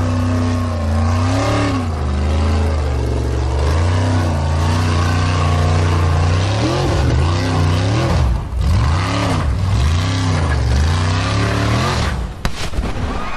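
A Formula Offroad hillclimb buggy's engine running at high revs, loud and steady at first. It then swings rapidly up and down in pitch as the spinning wheels grab and lose traction on the loose sand slope. Near the end the engine note breaks off with a sharp crack.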